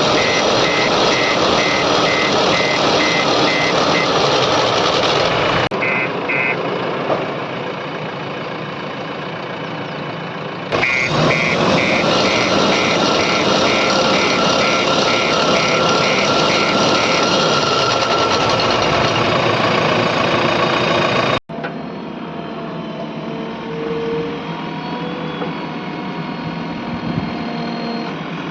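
Backhoe loader's diesel engine running under load while its reversing alarm beeps rapidly, the beeping stopping and starting again; the sound cuts abruptly between takes several times.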